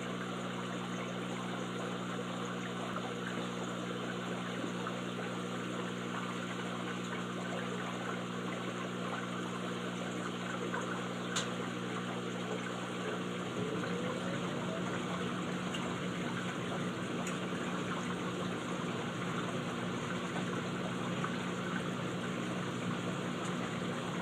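Aquarium pump running: a steady hum under the sound of moving water. There is a single short click about eleven seconds in, and about halfway through the hum breaks up and a low rumble joins the water sound.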